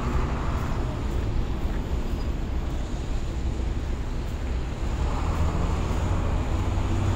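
Steady city street traffic noise: a low rumble of passing vehicles, swelling somewhat about five seconds in.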